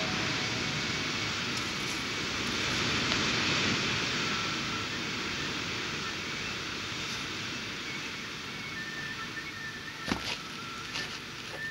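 Steady outdoor background noise, like a hiss, with a couple of sharp knocks near the end.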